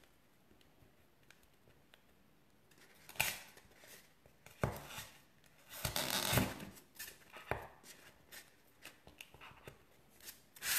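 Short rustles, taps and small clicks from hands adjusting sugarpaste figure legs on sticks in a polystyrene cake dummy. It starts quiet, and the clicks come quicker near the end.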